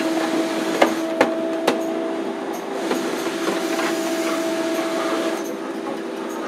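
Banknote printing-works machinery running with a steady hum, and three sharp knocks in the first two seconds as sheets of banknotes are handled.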